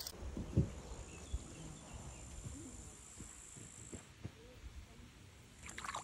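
Faint summer-meadow ambience: an insect's steady high-pitched trill that fades out about four seconds in, with a few soft thumps, the loudest near the start.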